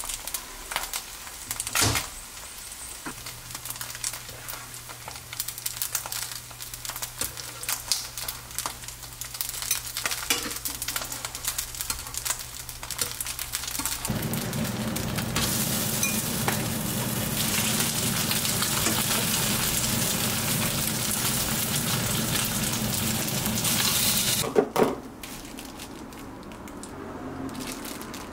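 Flat dumplings (napjak mandu) frying in oil in a nonstick pan: a crackling sizzle that turns into a louder, steady sizzle about halfway through. A brief clatter comes near the end, after which the sizzle drops away.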